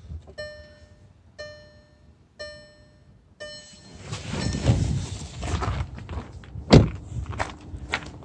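Car's dashboard warning chime sounding four times, about once a second, followed by rustling and a loud thump about seven seconds in, after which a faint steady hum continues.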